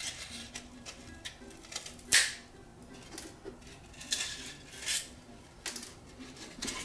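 Pins being pulled out of glued foam model parts and the parts handled: small clicks and scraping, with one sharp tap about two seconds in.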